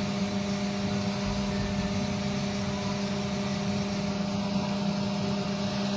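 Haas VF-3SSYT vertical machining center's spindle running steadily at 12,000 RPM, a constant hum with a steady hiss.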